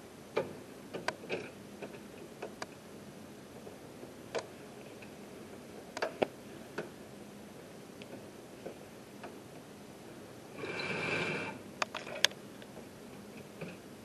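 Scattered clicks and knocks from hands working a microfilm reader's controls, with a rushing mechanical noise lasting about a second near the end.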